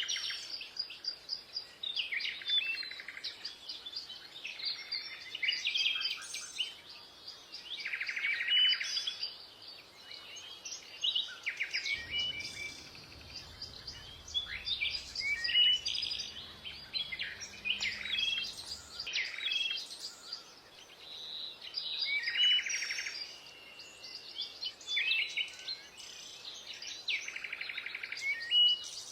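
Songbirds chirping and singing: many short whistled chirps, with a buzzy trill repeating every few seconds.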